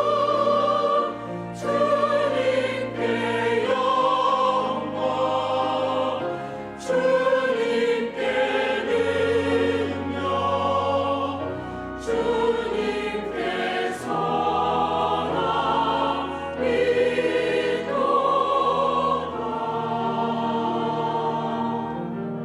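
Church choir singing a hymn anthem in several parts with instrumental accompaniment, in sustained chords with brief breaks between phrases.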